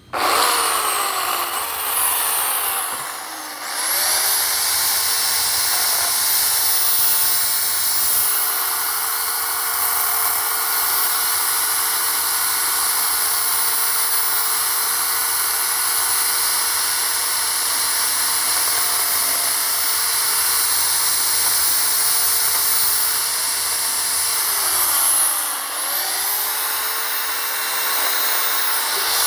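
WEN 16-inch electric chainsaw running at full speed while cutting small pine limbs, a steady high whine over chain noise. Twice, about three seconds in and again near the end, the motor winds down and revs straight back up as the trigger is let off and squeezed again.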